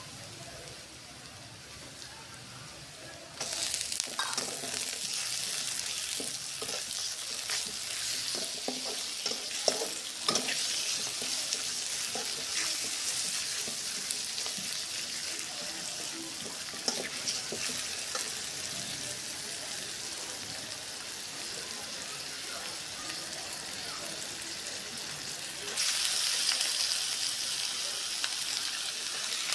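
Food frying on a hot pan or griddle: a steady, loud sizzle that starts suddenly about three and a half seconds in, with clicks and scrapes of stirring. It swells louder again near the end.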